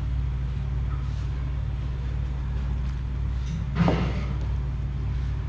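A hand mixing water into maize flour in a plastic bowl: faint squishing and rustling as the fingers work the damp flour, with a brief louder rustle about four seconds in. A steady low hum runs underneath throughout.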